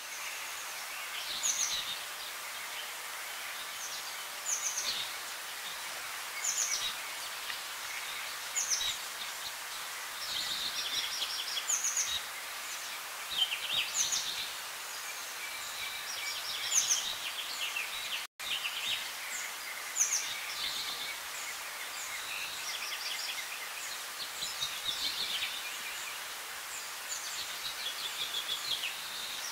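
Birds calling in short, high chirps every couple of seconds over a steady outdoor hiss.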